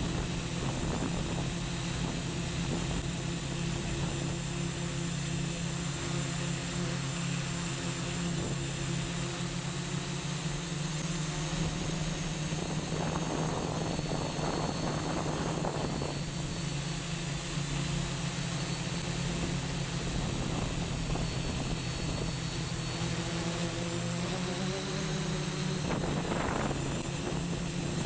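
TX8 octocopter's eight 880 kV brushless motors spinning 10x4.7 APC slow-fly propellers in forward flight: a steady buzz with a thin high whine over it. The pitch shifts slightly near the end, with brief rushes of noise about halfway through and again just before the end.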